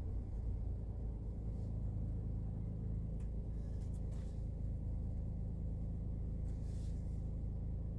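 Daihatsu Hijet Cargo van engine idling steadily with a low, even rumble. A few faint, brief hissing sounds come about three to four seconds in and again near the end.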